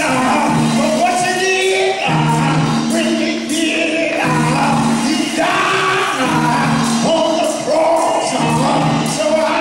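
A preacher chanting his sermon in a sung, tuneful cadence (whooping), over sustained organ chords.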